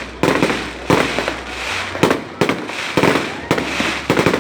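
Fireworks exploding overhead: a run of sharp bangs, roughly one every half second to a second, with crackling between them.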